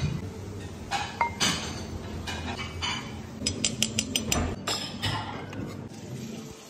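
Metal cutlery clinking and scraping against a ceramic plate as a spoon and knife work through pieces of braised meat, with a quick run of about eight clinks around the middle.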